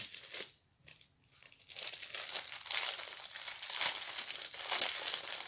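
Small clear plastic bags of diamond-painting beads crinkling as they are handled, starting about two seconds in.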